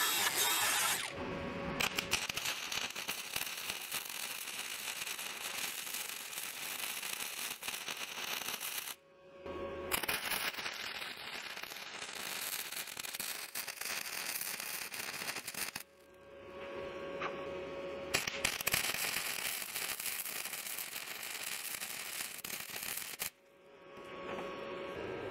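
An angle grinder runs briefly against the steel mower deck, stopping about a second in. Then a flux-core wire welder crackles and spits steadily in several welding runs, with short pauses between beads, as it welds cracked seams in the steel brush deck.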